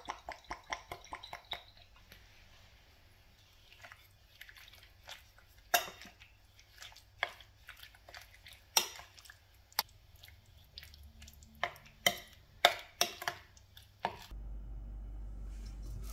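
Cooking oil glugging out of a glass jar onto chicken marinade in a quick run of pulses. Then a metal spoon stirs the yogurt-and-spice marinade in a bowl, with squishing and sharp, irregular clinks of the spoon against the bowl. Near the end a steady low hum starts.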